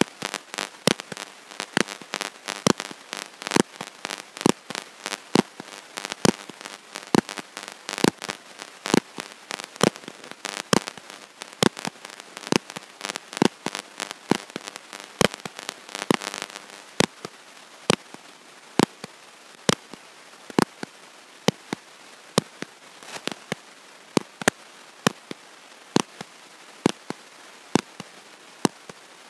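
Sharp, regular clicks, roughly one and a half a second, with denser crackling between them until about 16 seconds in, and no intelligible speech getting through: a fault in the audio recording or microphone signal.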